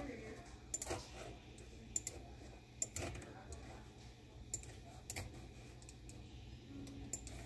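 Scattered sharp clicks from a computer mouse being used to draw and undo in a paint program, about nine or ten at irregular intervals.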